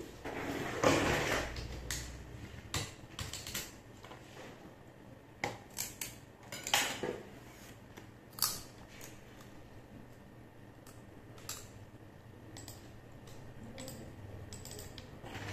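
Scattered light clicks and knocks of small objects being handled, with a brief rustle about a second in.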